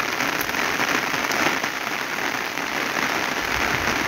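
Heavy rain falling steadily, an even downpour with no breaks.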